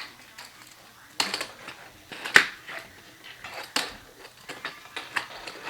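Plastic toys being handled and knocked together, a few scattered sharp clicks and knocks.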